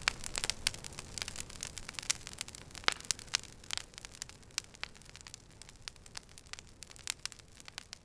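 Wood fire of logs and twigs crackling, with many irregular sharp pops over a low hiss; the pops come thickest in the first half and grow sparser toward the end.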